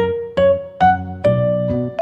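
Background music: a light piano-like keyboard tune, a new note struck about every half second over held low notes.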